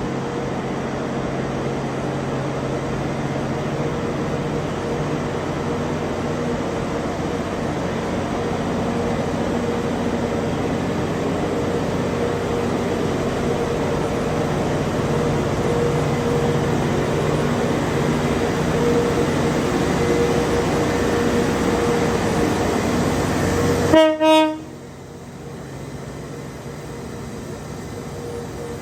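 A train passing close by, running steadily and growing slowly louder, then a short horn blast with two peaks about 24 seconds in, after which the noise falls away abruptly.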